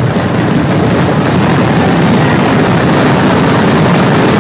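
Massed barrage of Kerala temple-festival fireworks (vedikettu): explosions following so fast that they merge into one continuous, very loud rumble.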